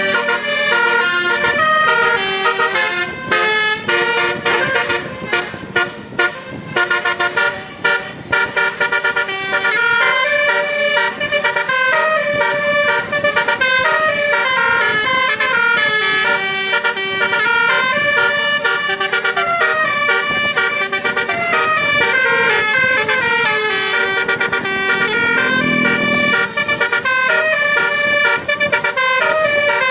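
Telolet Basuri musical bus horn: a multi-note electric horn playing a quick tune of stepped notes, choppy at first and then continuous.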